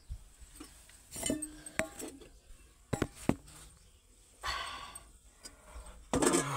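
Stainless steel cooking pots, lids and a spoon being handled: a run of sharp metal clinks and knocks, one ringing briefly, with short bursts of handling noise in the second half.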